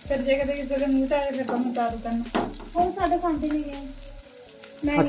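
Sliced onions and green chillies sizzling as they fry in oil in an aluminium pan, stirred with a metal slotted spoon that clicks and scrapes against the pan now and then. A voice is faintly heard underneath.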